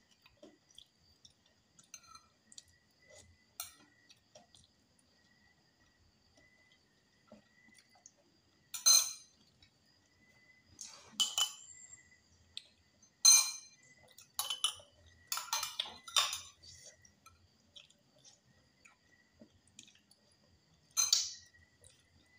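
A metal spoon clinking against a glass jar of chili garlic as it is scooped out: a series of short, sharp clinks bunched in the middle, with one more near the end. Faint small clicks fall between them.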